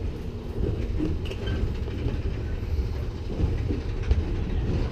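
Big Thunder Mountain Railroad mine-train roller coaster rolling along its track with a steady low rumble.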